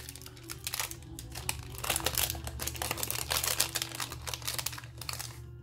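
A Yu-Gi-Oh! Ghosts from the Past foil booster pack being torn open by hand: a run of crinkling, crackling foil and short tearing rustles.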